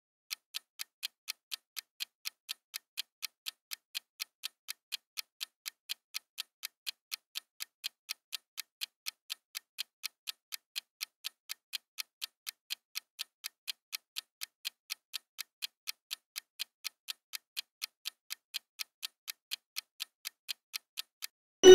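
Countdown-timer sound effect: a steady, thin clock-like tick, about three ticks a second. The ticking stops as a loud ringing chime sounds at the very end.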